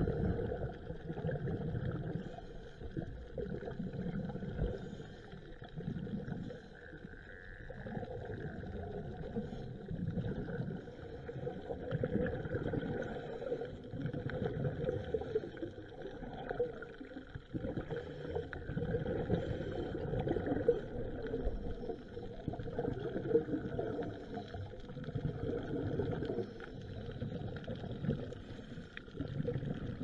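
Muffled underwater noise through a diving camera's housing: a low rumbling and bubbling that swells and fades every few seconds.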